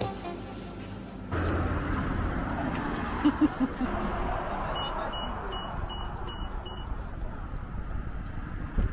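A car running, with a steady road-and-engine hiss that starts suddenly about a second in. Midway there are six short, evenly spaced high beeps, about two and a half a second, like a car's warning chime.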